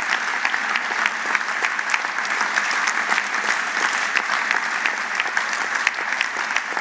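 Applause from a large seated audience: many people clapping at once, steady and dense throughout.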